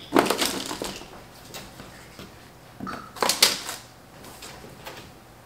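Raw potato wedges being handled and set down on a parchment-lined cookie sheet: short bursts of rustling and tapping right at the start and again about three seconds in.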